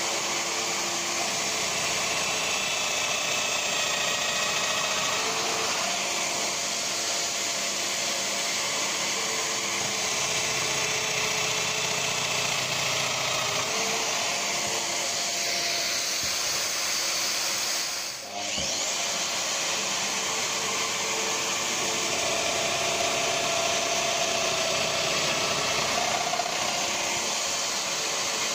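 Festool Domino joiner running steadily with a dust extractor pulling through its hose, a continuous whir as it cuts mortises for the door joints. The sound drops out briefly about two-thirds of the way through.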